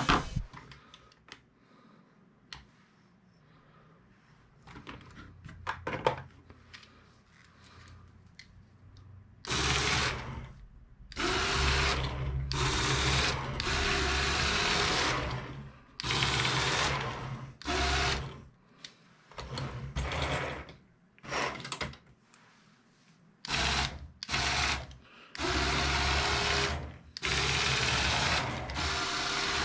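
Small electric motors and gear trains of a motorized brick-built train running in about a dozen short bursts, starting and stopping as the remote buttons are pressed, each with a whine that rises as the motor spins up. The first several seconds hold only a few faint clicks of handling before the motors first start about ten seconds in.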